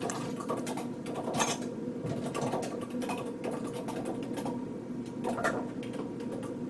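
Office ambience: a steady low hum of machinery under scattered small clicks and clatter.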